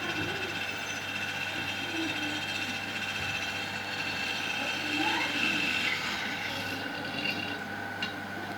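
Small electric drill motor running at a steady speed with a high whine.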